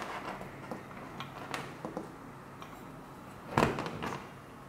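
Handling noises of a metal 24 V stop solenoid: scattered light clicks and taps, then one louder knock about three and a half seconds in as it is set down on the table.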